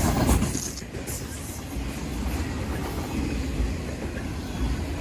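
CN freight train's cars rolling past on the rails: a steady low rumble with a few clanks in the first second.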